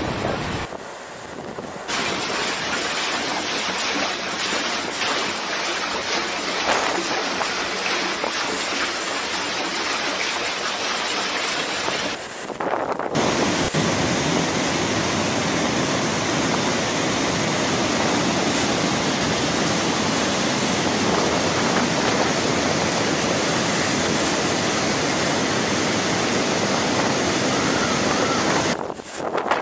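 Rushing floodwater: a fast, muddy torrent of river and street water running with a steady, continuous rush, broken twice by brief dips where the footage changes.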